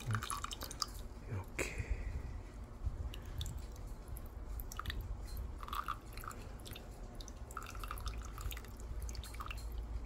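A thin stream of liquid trickling from a toy washing machine's drain hose onto ice cubes in a stainless steel mug, with small drips and clicks.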